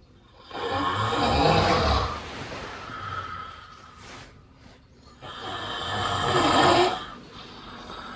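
A person snoring loudly: two long snores, each about two seconds, the second starting about five seconds in.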